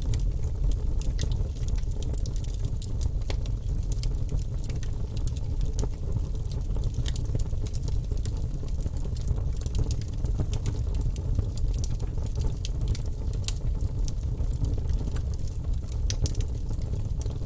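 Fire in a fireplace crackling, with frequent sharp pops over a steady low rumble.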